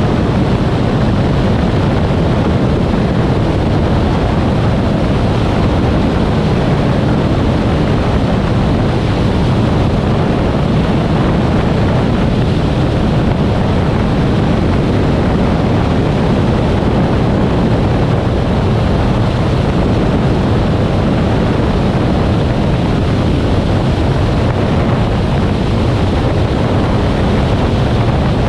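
Steady rush of wind buffeting an externally mounted camera on a Cessna A185F in flight, with the aircraft's engine droning underneath, as it descends low over water on a landing approach. The noise is loud and unchanging throughout.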